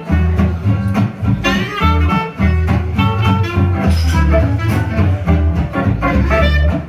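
Live gypsy-jazz band playing a swing tune, with guitar over steady plucked double bass notes.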